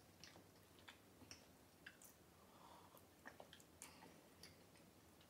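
Faint mouth sounds of sipping and swallowing coffee with milk from a glass mug: scattered small clicks and smacks at irregular intervals.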